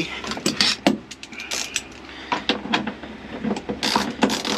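Hand ratchet wrench clicking as a seat belt anchor bolt is run in, with scattered metal clinks and knocks of the tool and hardware, the ratcheting quickening into a steady run of clicks near the end.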